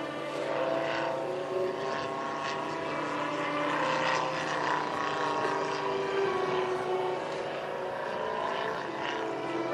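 Engine and propeller of a large radio-controlled scale Boeing Stearman biplane running in flight overhead, a continuous drone whose note shifts a little as the plane manoeuvres.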